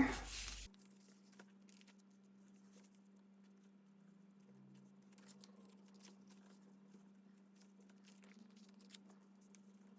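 Faint, sparse rustles and small taps of paper being handled, over a low steady hum.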